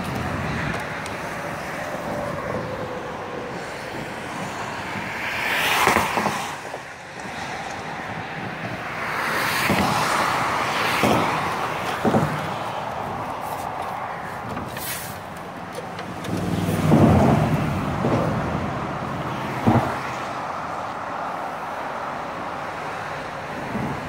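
Road traffic crossing a highway bridge: swells of tyre and engine noise as cars go by, with several sharp knocks as car tyres hit the deck's expansion joint.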